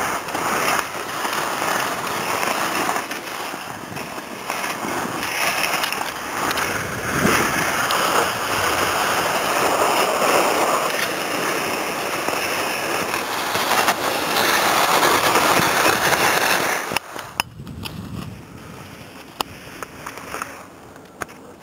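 Skis sliding and scraping over packed snow, with wind on the microphone, as a skier runs down a forest track. About seventeen seconds in it drops suddenly to a quieter hiss with a few sharp clicks.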